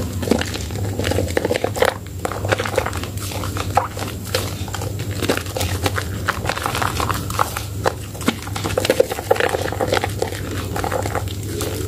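Wet squelching and crackling of soaked soap and thick lather being squeezed and kneaded by hands, a continuous run of small squishes and popping bubbles.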